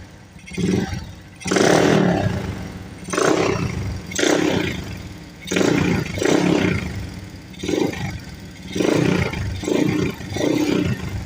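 Honda Wave 125 single-cylinder four-stroke engine, bored to 57 mm with big valves and a racing cam, blipped to half throttle about ten times in quick succession and dropping back to idle between, through an aftermarket chicken pipe exhaust. The second blip, about a second and a half in, is held a little longer than the rest.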